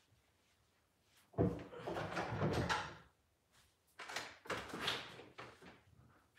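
Handling noise as grooming tools are gathered: a sudden knock and scraping about a second and a half in, then a second burst of knocks and rattling about four seconds in.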